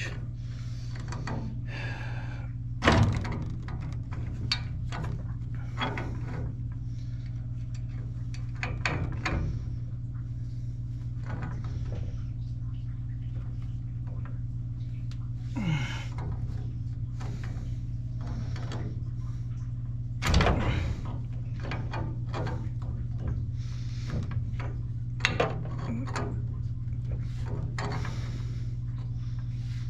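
Two steel pipe wrenches clanking and knocking against a black iron gas pipe fitting in scattered sharp strokes, the loudest about three seconds in and about twenty seconds in, over a steady low hum. The wrench jaws slip with zero grip and the head doesn't want to rock.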